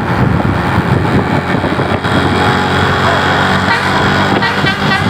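Tour bus running close by, with its multi-tone telolet musical horn sounding steady notes over the engine from about two seconds in.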